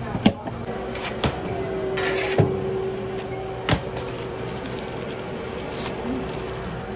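Metal clanks and knocks of a TurboChef speed oven's tray and paddle as a tray of toasted subs is pulled out. There are about four sharp knocks in the first few seconds and a short rush of air about two seconds in, with a steady oven hum underneath.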